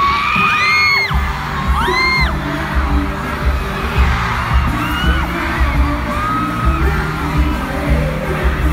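Live K-pop concert music over an arena sound system, with a steady heavy bass beat, and fans' high screams rising and falling over it, several in the first two seconds.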